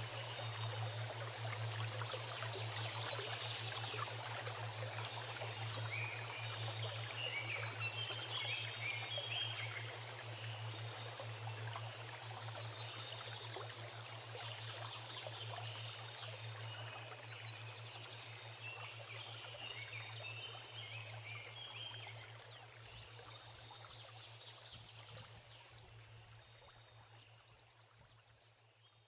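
Ambient nature soundscape of running stream water with scattered short, high chirps and a steady low hum underneath, fading out over the last several seconds.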